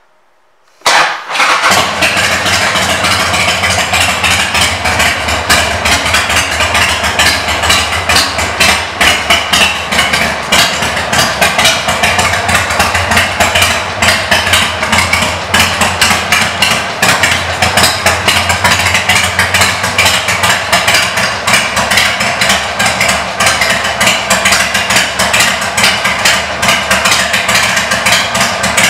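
Harley-Davidson Sportster 1200 Custom's air-cooled V-twin, fitted with Screamin' Eagle pipes, starts about a second in and settles into a steady, lumpy idle.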